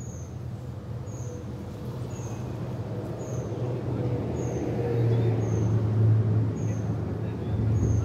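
Low engine hum of an unseen motor vehicle, steady in pitch and growing louder over the second half. A short high chirp repeats about once a second throughout.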